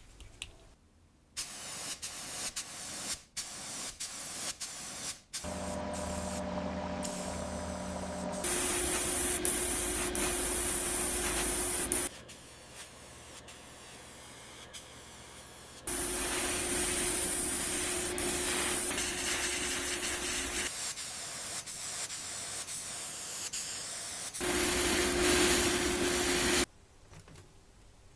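Spray painting: three long spells of hissing spray, each starting and stopping abruptly over a low steady hum, after a few seconds of scraping and rubbing strokes.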